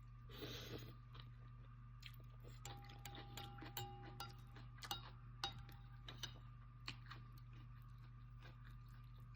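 Faint eating sounds while having noodles: a short rush of noise about half a second in, then chewing and a run of light clicks and clinks, some ringing briefly, over a steady low hum.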